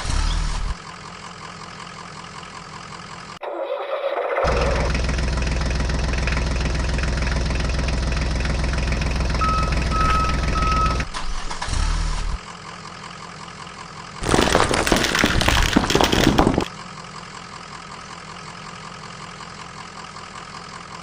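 Heavy engine sound like a backhoe loader's diesel, idling and running louder in stretches that start and stop abruptly. Three short beeps come midway, and a loud rough noisy burst lasts a couple of seconds later on.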